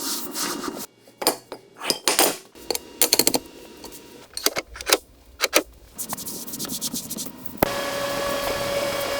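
Hand tools working on metal: a run of sharp taps and clinks, some in quick clusters, with scraping between. Near the end a steady hum sets in.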